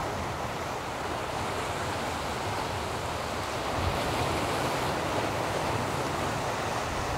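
Steady wash of sea surf breaking on rocks, with wind gusting on the microphone as a low rumble.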